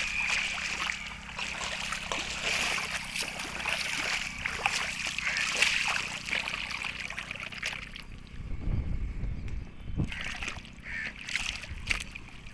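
Water splashing and sloshing as small plastic toy vehicles are dragged through shallow water. The splashing thins out about eight seconds in.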